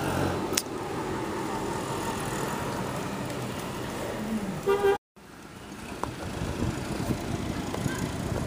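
Steady street traffic noise with a short vehicle horn toot about four and a half seconds in, and a sharp tick near the start.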